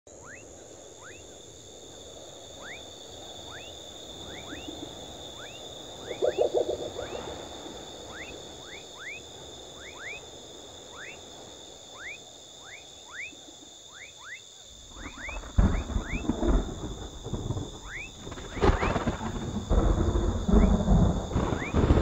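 Dusk chorus: a steady high-pitched insect drone with short rising chirps repeating about once or twice a second, and a brief pulsed croak about six seconds in. About fifteen seconds in, rumbling thunder and gusts of storm wind and rain set in and become the loudest sound.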